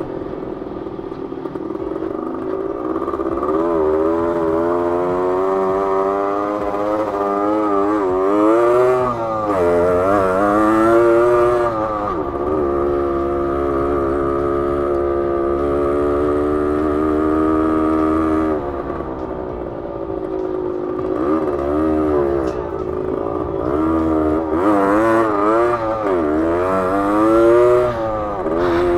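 1972 Yamaha LT2 100's single-cylinder two-stroke engine running while riding, its pitch climbing and dropping with throttle and gear changes, then holding steady for several seconds in the middle before rising and falling again.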